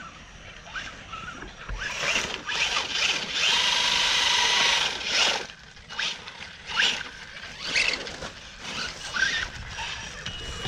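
Electric motor of a radio-controlled off-road truck whining and revving up and down in short spurts as it drives, loudest in a sustained run around four seconds in.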